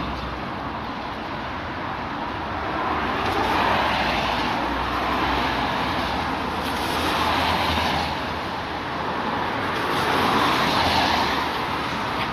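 Street traffic: cars going past one after another, the noise swelling and fading three times over a couple of seconds each.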